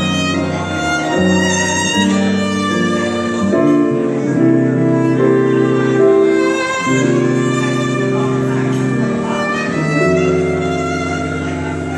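Violin and piano playing a slow jazz ballad, the violin holding long notes over the piano.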